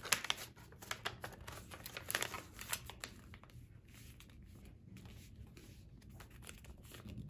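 Sheet of paper being folded by hand: crinkling and rustling with sharp crackles as creases are made, thinning to faint rustles about three seconds in as the folded paper is pressed flat on a table.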